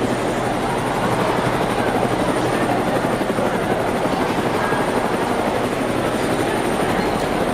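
Steady rumble of a helicopter in flight, with a fast flutter from the rotor.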